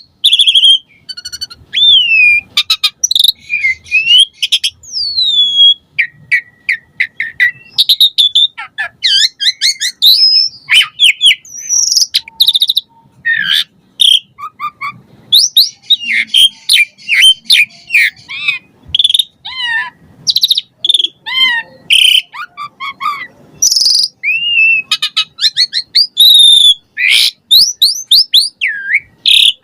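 Pied starling (jalak suren) singing a long, varied run of whistles, rising and falling gliding notes, chirps and clicks with hardly a pause: the full song packed with mimicked phrases ('isian') that keepers prize.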